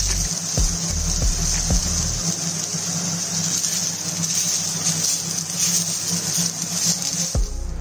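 Sliced onions sizzling as they fry in a pan, a steady hiss, with a few light knocks.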